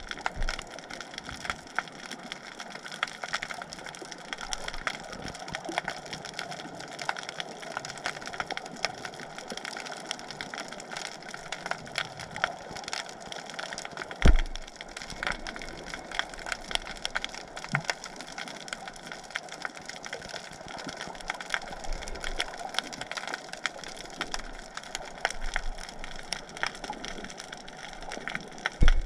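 Underwater crackle of countless tiny clicks, the sound of a snapping shrimp colony, going on without a break; a dull thump about 14 seconds in and another at the very end.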